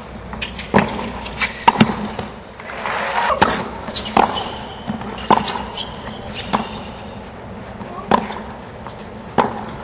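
Tennis ball being struck by rackets and bouncing on a hard court during a rally: sharp pops about once a second over the steady noise of a stadium crowd.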